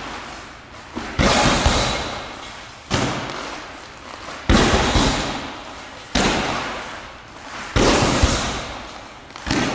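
Heavy punching bag struck with gloved punches: six solid thuds, about one every second and a half, each trailing off slowly over a second or so.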